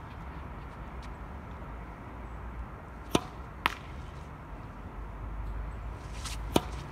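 A tennis ball bounced twice on a hard court about three seconds in, then struck with a racket on a flat serve near the end, the loudest hit of the three.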